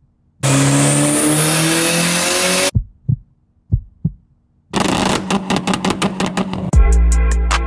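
Car engine revving in two bursts, the first rising in pitch, the second close at the exhaust with rapid sharp pulses; a turbocharged Mitsubishi Lancer Evolution IX's 4G63 inline-four. Pairs of deep thumps fall between the bursts, and music with a heavy bass beat starts near the end.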